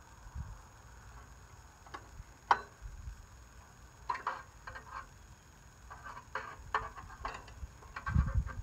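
Scattered sharp metallic clicks and taps of hand tools working on a riding mower: two single clicks, then a few short clusters, with a low thump near the end.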